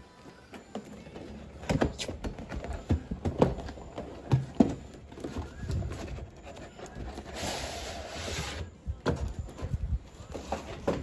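Large cardboard toy box being handled and opened: irregular knocks and taps as it is turned and set flat, rubbing of hands on the card, and a steady scrape of cardboard sliding on cardboard lasting about a second and a half in the middle.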